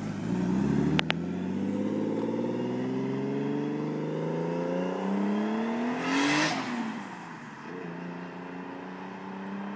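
RB25 straight-six engine in a Nissan 240SX, through an Apexi exhaust, accelerating away hard: its note climbs steadily for about six seconds, a short hiss comes at the gear change, then a lower, steady note fades as the car drives off.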